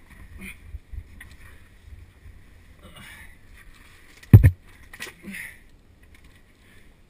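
A caver crawling through a tight rock passage, with clothing and gloves scuffing and scraping on the rock. One heavy thump about four seconds in, followed by a couple of lighter scuffs.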